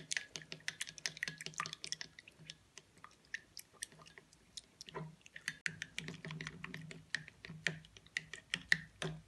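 Plastic spoon whisking diluted liquid hand wash in a glass bowl, clicking rapidly and irregularly against the glass as the liquid is worked into a lather.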